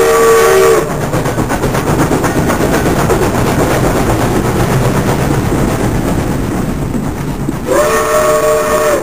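A sustained multi-note horn chord, like a train horn, sounding until about a second in and again near the end, with a dense rumbling, rattling noise in between.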